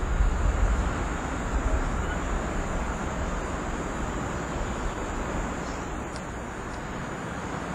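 Outdoor ambient noise: a low rumble, loudest in the first two seconds and then easing off, under a steady high-pitched hiss.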